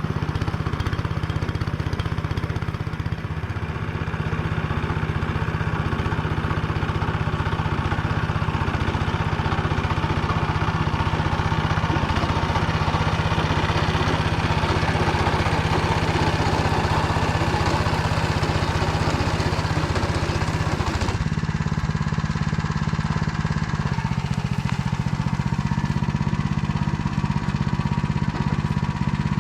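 Engine of the machine driving a Motor Sich rotary tiller, running steadily under load as the tiller churns through stubble. The engine note shifts abruptly about 21 seconds in.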